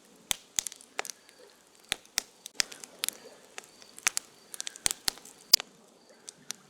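Wood fire crackling, with irregular sharp pops several times a second, the loudest about five and a half seconds in. A cricket chirps faintly behind it.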